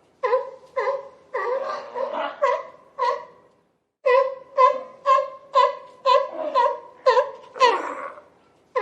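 Sea lion barking: a rapid series of short, pitched barks, about two to three a second, with a brief pause a little before the middle.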